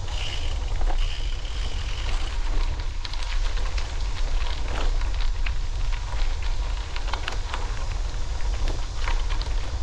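Wind rumbling on the microphone of a moving bicycle, with the tyres crackling and ticking over a rough trail surface.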